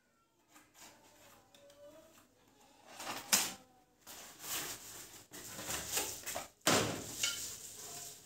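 Packaging being cut and pulled off a pedestal fan's stand pole with a knife: scraping and rustling of card and plastic wrap. Two louder scraping knocks come about three seconds in and again near seven seconds.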